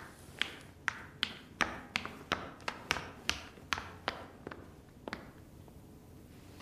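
Quick footsteps of hard-soled shoes on a hard tiled floor, about two or three steps a second, stopping a little after five seconds.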